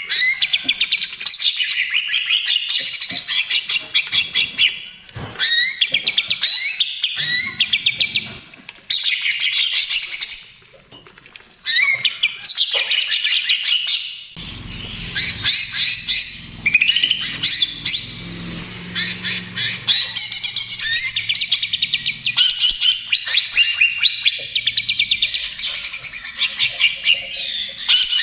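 Young cucak ijo (green leafbird) singing a fast, continuous chattering song of rapid high notes and trills, with only brief pauses. A faint low hum runs underneath through the middle part.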